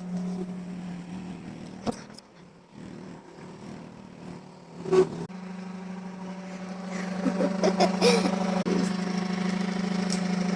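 Vacuum cleaner motor running with a steady low hum. It fades for a few seconds, then comes back louder from about halfway and holds steady, with a couple of sharp knocks.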